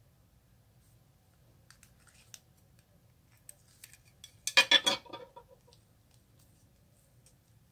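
Glossy slime being worked by hand, making faint sticky clicks, then a brief burst of rapid popping clicks about four and a half seconds in.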